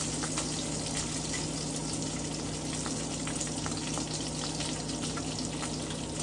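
Food frying in a pan: a steady sizzle with many small crackles and pops, over a steady low hum.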